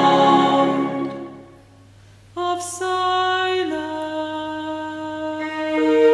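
Slow, mournful music: a sung passage fades out about a second and a half in, then after a short lull a new passage of long held notes begins, stepping down and later up in pitch.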